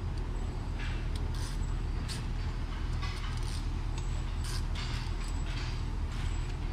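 Steady low hum of shop machinery, with scattered light clinks and rustles of engine parts and hardware being handled during engine assembly.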